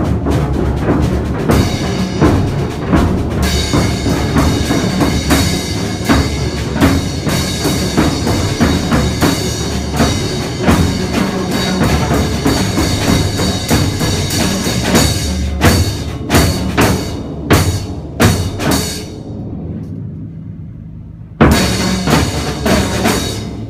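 Percussion ensemble of drum kit, cymbals, mallet keyboards and bass drum playing a dense, driving passage. Toward the end come separated accented hits and a fading ring, then one last loud full-ensemble hit with cymbals ringing out before it stops.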